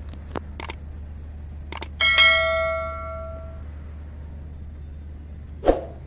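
Subscribe-button animation sound effect: a few quick mouse clicks, then a bright notification-bell ding about two seconds in that rings out and fades. Another short sharp sound comes near the end, over a steady low rumble.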